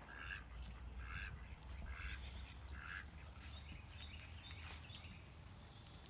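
A duck quacking four times, about one call a second, then falling quiet.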